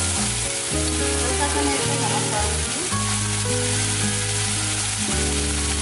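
Chopped tomatoes, onion and green chilli sizzling in hot oil in a steel kadhai, stirred now and then with a steel spoon, over background music.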